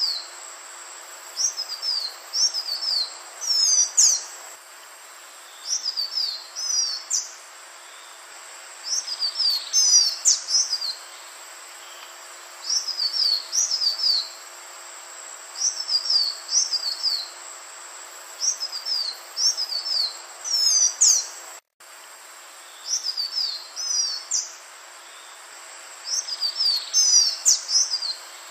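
Male green iora singing: short bursts of rapid, sweeping high whistled notes, repeated every second or two, over a steady high whine. The sound drops out for an instant about two-thirds of the way through.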